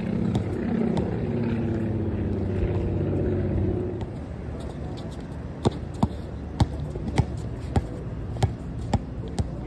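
A low rumble of a passing road vehicle fills the first few seconds. Then, from about halfway through, a basketball is dribbled on a concrete court: sharp, evenly spaced bounces about twice a second.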